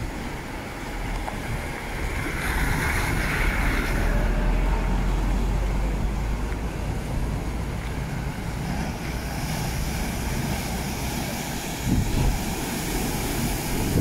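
Sea waves breaking and washing over rocks, a surge building a few seconds in and a sudden crash about twelve seconds in, with wind rumbling on the microphone.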